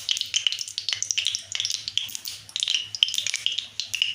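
Mustard oil heating in a kadai, sizzling with a dense run of rapid, irregular crackles and pops.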